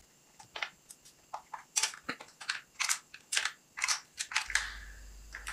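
Small plastic clicks and clacks of a toy RC truck's battery compartment being opened, the screwed plastic cover worked loose and lifted off by hand; a dozen or so irregular sharp clicks.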